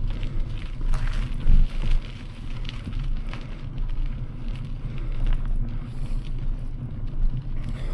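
Loaded bicycle rolling on a rough gravel track: steady crunching and crackling from the tyres with rattles, and wind buffeting the camera microphone.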